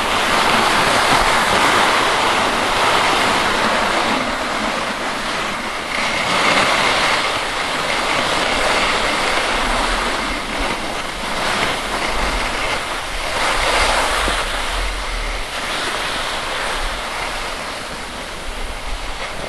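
Skis sliding over packed snow with a steady rushing hiss that swells and eases every second or two, mixed with wind buffeting the camera microphone.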